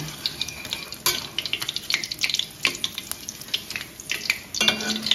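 Oil sizzling in a steel wok while a metal spider strainer and spoon scoop fried cubes out, with repeated sharp clinks and scrapes of metal on metal.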